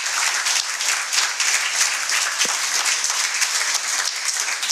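Audience applauding, many hands clapping in a dense, steady stream.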